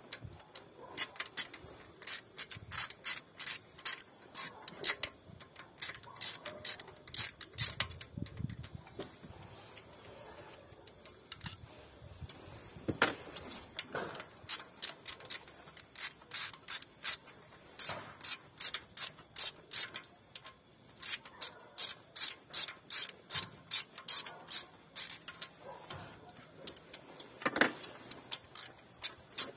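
Ratchet wrench clicking in quick runs of several clicks, with short pauses between, as it undoes the ignition coil bolts; a couple of louder single knocks stand out.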